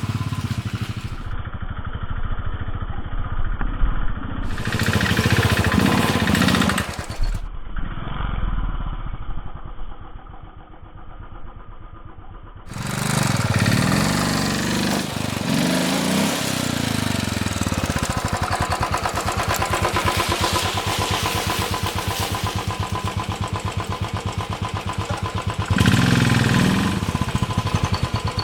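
Royal Enfield Thunderbird 500's single-cylinder engine revving up and easing off over and over, under load, as the bike struggles for grip on a loose muddy slope. The sound changes abruptly several times where separate takes are cut together.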